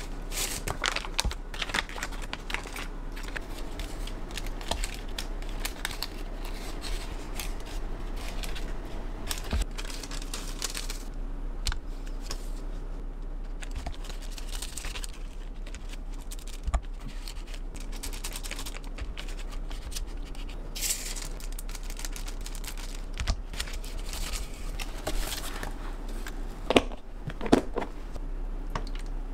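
Parchment paper and the butter's foil wrapper rustling and crinkling as sheets are slid between slices of a butter block with a knife, with light scraping and tapping on a wooden cutting board. A few sharper knocks come near the end.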